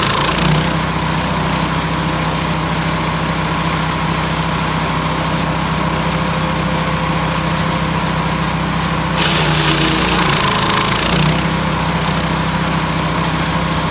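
Engine of a Lumag HC10 portable wood chipper running steadily. About nine seconds in, a louder hissing spell lasts around two seconds, and the engine note wavers briefly near its end.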